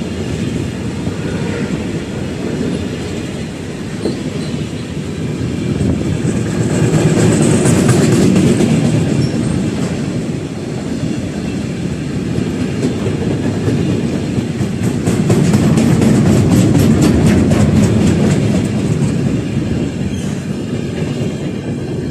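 Freight train of enclosed double-deck car-carrier wagons rolling past close by: a loud, steady rumble of wheels on rail that swells twice, with rapid rhythmic clicking as the wheels cross rail joints in the latter half.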